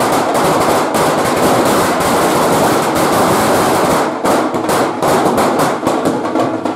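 Firecrackers bursting on the ground in rapid succession, a dense, continuous crackle of bangs with a short break about four seconds in.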